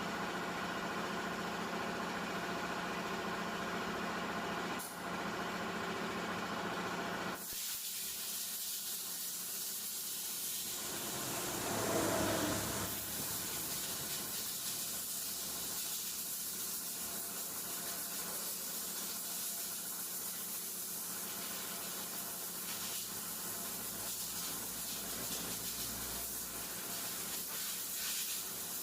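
A steady mechanical hum for about seven seconds, which cuts off suddenly and gives way to a steady hiss like air or liquid spraying, swelling briefly about twelve seconds in.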